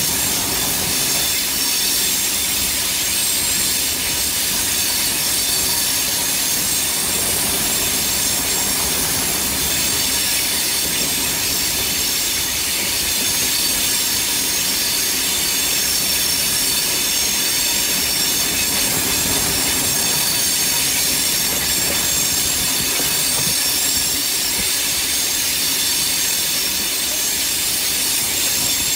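Railway carriage wheels running steadily along the track as the train takes a curve, with high, steady squealing from the wheels throughout.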